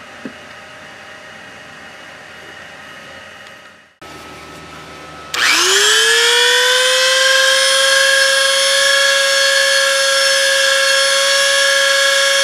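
A Dremel rotary tool with a sanding drum starts about five seconds in. It spins up with a quickly rising whine and then runs at a steady high pitch while grinding a little material off an RC truck's steering part.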